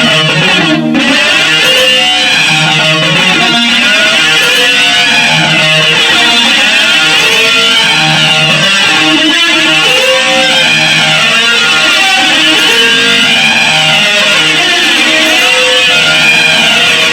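Loud, steady noise-jam music: strummed electric guitar with a high whooshing sweep that rises and falls about every two seconds.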